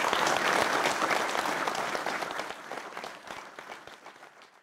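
Audience applauding, loudest at first, then thinning out and dying away near the end.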